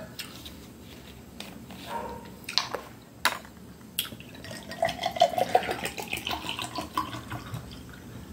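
Juice poured from a plastic bottle into a tall drinking glass, gurgling and rising in pitch as the glass fills. A few sharp clicks come just before the pour.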